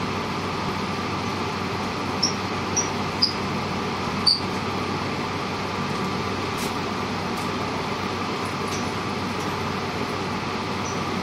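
Steady hum and hiss inside the car of a JR Shikoku 8600-series express train. Four short, high squeaks come between about two and four and a half seconds in.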